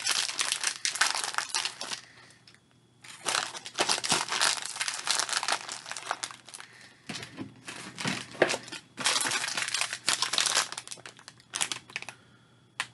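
Plastic snack packaging crinkling and rustling as it is handled, in three long stretches with short pauses between them.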